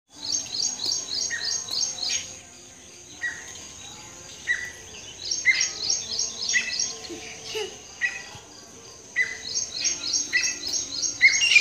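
Birds chirping: quick runs of high chirps that come and go, with a short falling call repeating about once a second.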